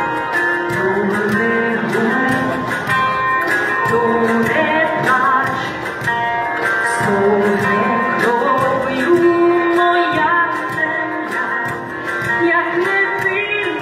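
A woman singing a song, accompanying herself on a plucked bandura, with a cajón keeping a steady beat.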